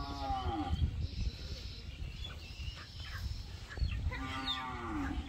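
A chicken held upside down by its legs calling out twice, drawn-out calls with a falling pitch, one at the start and one about four seconds in.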